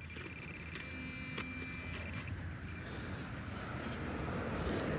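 A metal detector's steady electronic tone held for about two seconds as the gloved hand searches the loose soil of a dug plug for the target, with light scraping and clicking of soil. A low vehicle rumble grows louder toward the end.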